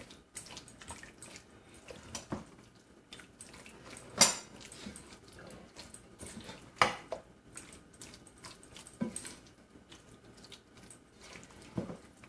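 Raw chicken being mixed with a wet yogurt-and-spice marinade in a bowl: scattered soft squelches and knocks, with a few louder clacks against the bowl about four, seven, nine and twelve seconds in.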